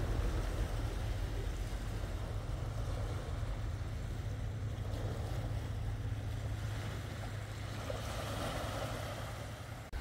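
Seaside ambience: small waves washing over a rocky beach with a steady low rumble underneath. The sound drops out for an instant near the end.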